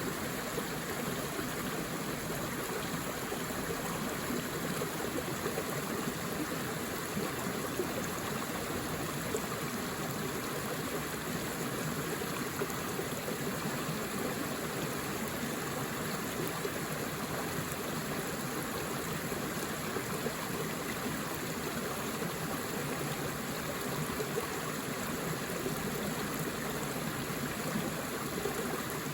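Forest river flowing over rocks: a steady, even rush of running water.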